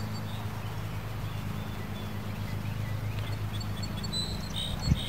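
Steady low mechanical drone in the background, with scattered high bird chirps that grow busier near the end and a single thump just before it ends.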